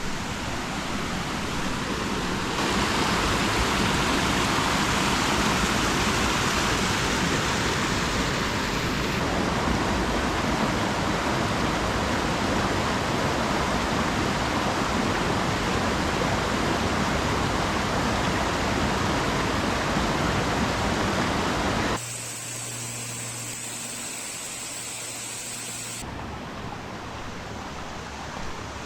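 Rushing water of a waterfall, a steady roar of white noise that changes abruptly between takes and is quieter from about 22 seconds in.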